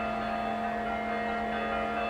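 Church clock bell ringing on after a stroke: several steady tones held evenly, with no new strike.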